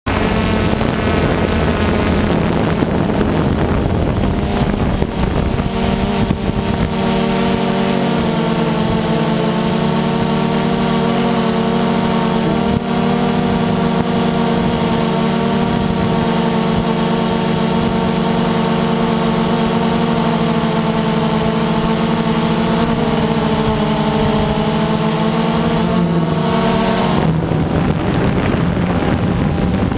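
Multirotor drone's motors and propellers humming steadily at a nearly constant pitch, heard through its onboard camera's microphone, with wind rumble on the microphone that is strongest in the first few seconds and again near the end.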